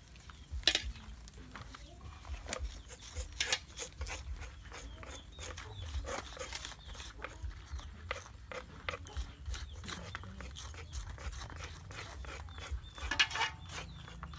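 Small knives cutting water snakes on a round wooden chopping block: scattered clicks and taps of blade and hands on wood and banana leaves, with louder clusters about a second in and near the end.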